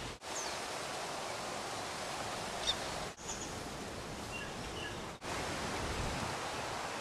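Steady outdoor background noise, an even hiss, with a few faint, short, high bird chirps. It is broken by three brief dropouts.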